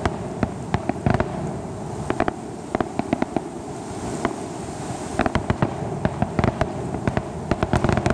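Aerial fireworks shells bursting: a run of sharp bangs and crackles, sparse at first and coming thick and fast in the second half.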